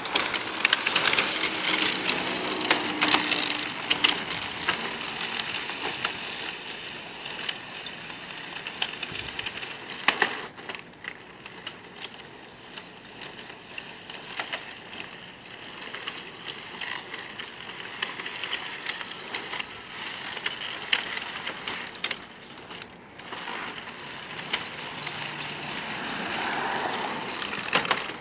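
Giant 3D-printed plastic RC vehicle driving over rough asphalt: its drive whirring, with the clatter and small knocks of plastic parts and wheels on the pavement. It is louder near the start and again near the end, and fainter in the middle.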